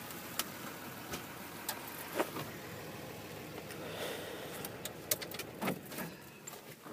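Truck cab with a Cummins straight-six turbo diesel idling low, and scattered light clicks and rattles. About six seconds in the rumble stops, as the engine is shut off.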